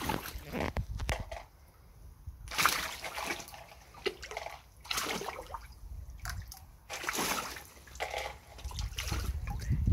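Trout splashing and sloshing at the water surface as they rush up to snatch floating feed pellets, in irregular bursts of several splashes each with short quieter gaps between.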